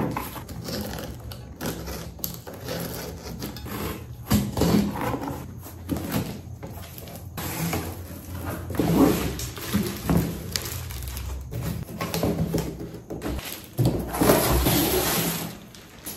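Cardboard box being opened by hand: packing tape peeled and torn, and the flaps scraping and rustling in a run of irregular crackles and scrapes. Near the end, a plastic-wrapped item crinkles as it is lifted out.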